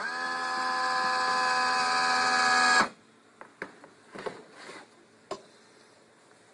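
A vending machine's small electric motor whirs for about three seconds, rising in pitch as it spins up and cutting off sharply, followed by a few light clicks and knocks.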